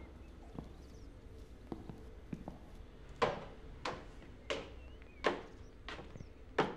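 A run of six even knocks, about three every two seconds, starting about three seconds in, with faint high chirps between them.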